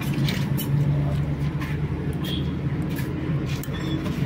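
Steady low hum of a motor vehicle engine running in the background, with a few light metal clicks from valve collets being fitted to a motorcycle cylinder head.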